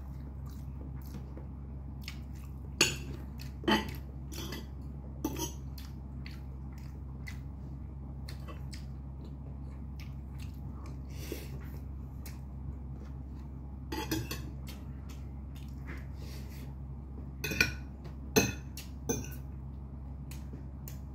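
Metal fork and spoon clinking and scraping against a ceramic plate and dish while someone eats noodles and rice. The sharp clinks come in a few clusters, the loudest about three seconds in and a group of three near the end, over a steady low hum.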